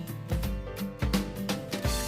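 Background music with a steady beat and deep drum hits.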